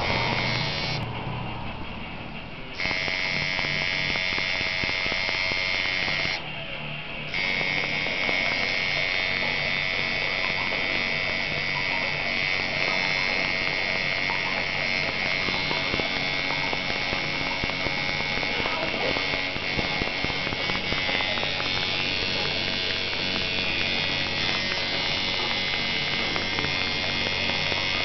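Electric tattoo machine buzzing steadily while shading ink into skin. It cuts out briefly twice in the first seven seconds, then runs without a break.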